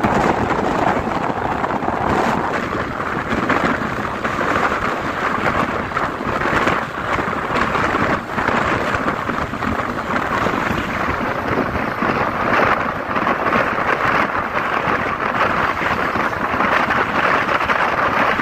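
Bus in motion: steady rushing engine and road noise, with wind on the microphone.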